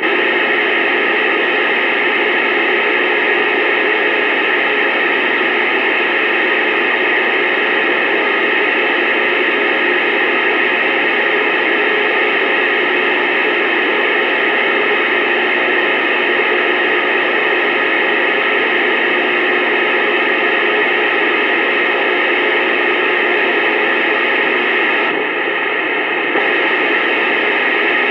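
Steady radio static hiss from a CB radio receiver's speaker, with no one transmitting. It dips slightly for about a second near the end.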